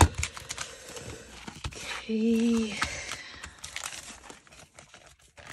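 Paper-bag journal pages rustling and crinkling as they are handled, with scattered small clicks. A single sharp knock right at the start is the loudest sound.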